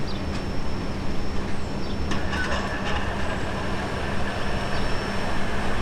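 Freight train of covered hopper cars rolling past on the rails: a steady rumble of steel wheels with scattered sharp clicks.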